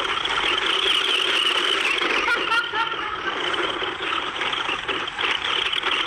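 Remote-control toy monster truck driving at speed, a steady noise from its small motor and wheels.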